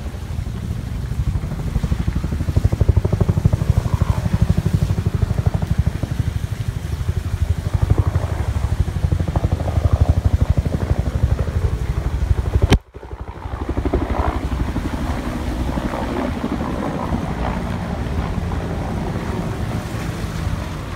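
Low, steady rumble of a car driving, heard from inside the car. The sound drops out for a moment about 13 seconds in, then the rumble resumes.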